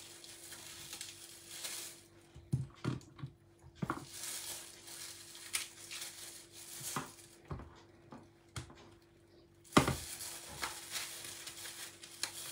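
Kitchen knife cutting the seeds out of apple pieces held in the hand: crisp slicing and scraping in three stretches, with a few sharp clicks in between. A faint steady hum lies under it.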